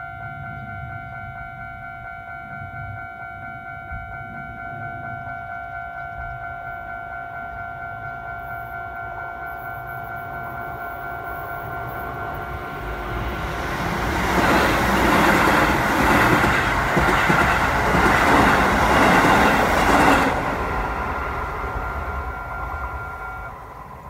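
Japanese level-crossing alarm ringing steadily while the barriers are down, then a Keisei Chiba Line electric train passes over the crossing, loudest between about 14 and 20 seconds in. The alarm stops shortly before the end.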